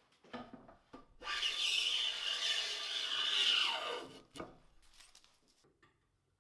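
Hand plane taking a long stroke along a wooden board: a steady shaving hiss lasting about three seconds that tails off, after a short scrape. A sharp knock follows the stroke.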